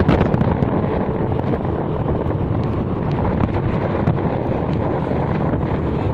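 Wind buffeting the microphone over the steady running rumble of a moving vehicle, with a few small knocks near the start.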